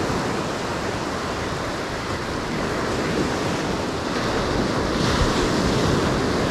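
Ocean surf breaking and washing up a sandy beach: a steady rush of waves that grows a little louder past the middle.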